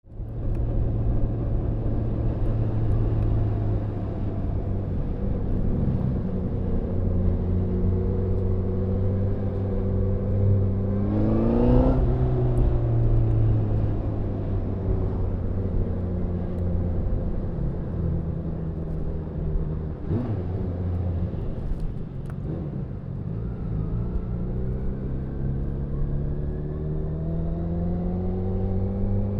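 2017 Honda CBR1000RR SP's inline-four engine running at a steady low note. About twelve seconds in it revs up sharply and drops back, and near the end its pitch climbs steadily as it accelerates.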